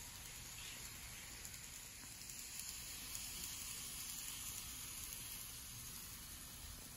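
Faint steady hiss and whir of model electric trains running along the layout's track, a little louder in the middle as a train passes closest.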